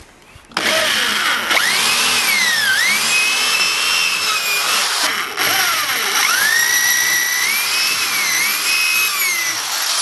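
Handheld electric drill boring through a wooden plank into a pallet, in two runs with a short break about five seconds in. The motor's whine sags each time the bit bites and picks back up as it cuts through.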